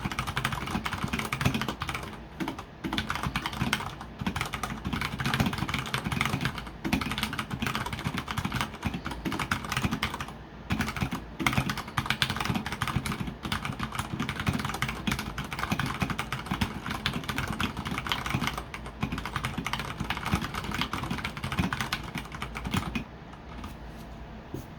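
Fast typing on an Akko 3068 mechanical keyboard with Cherry MX Brown switches, on a hard desk surface: a dense, continuous clatter of keystrokes and key bottoming-out, with a brief lull about ten seconds in, stopping shortly before the end.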